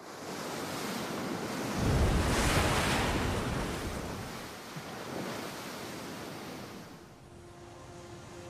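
Ocean surf: a wave breaks and crashes about two seconds in, then its wash fades away. Soft music comes in near the end.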